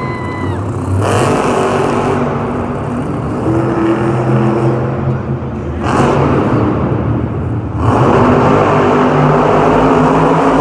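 Megalodon monster truck's supercharged V8 engine revving hard and running at high power. It gets louder from about eight seconds in.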